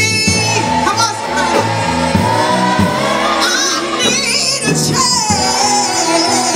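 Gospel singers with a band, voices holding and bending long notes over a steady bass line.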